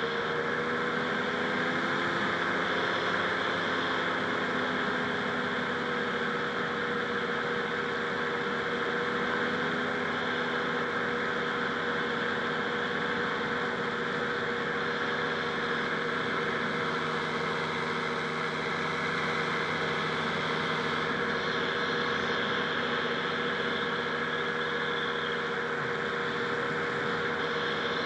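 Rotax 582 two-stroke twin engine of a Buckeye powered parachute running at a steady throttle; its pitch lifts slightly in the first few seconds, then holds even.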